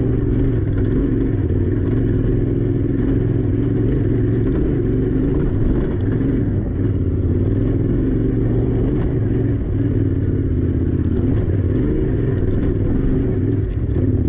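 Yamaha Ténéré 700's parallel-twin engine running steadily as the motorcycle is ridden along a rough dirt track, with occasional faint clicks over the engine.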